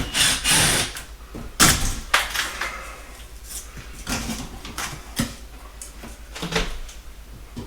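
Scraping and knocks as a ceiling light fixture is worked loose from its mounting: a rough scrape at the start, a sharp knock and scrape a little over a second and a half in, then lighter clicks.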